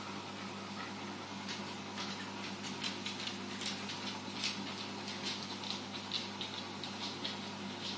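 Reef aquarium equipment: a steady low pump hum over a hiss of moving water, with irregular crackling and trickling ticks, several a second, from about a second and a half in.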